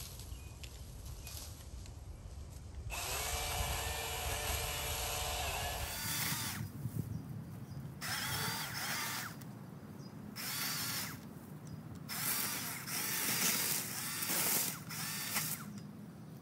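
Milwaukee M18 cordless electric pole saw running in repeated bursts of one to two seconds, whining up and stopping again and again as it cuts brush.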